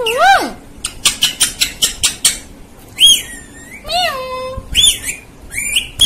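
Talking rose-ringed parakeet chattering: short whistle-like calls that rise and fall, mimicking speech, with a quick run of clicks about a second in.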